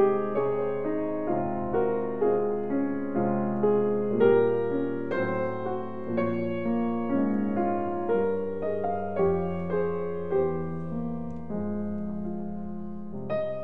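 Slow, gentle piano music, single notes and chords struck one after another and left to ring and fade.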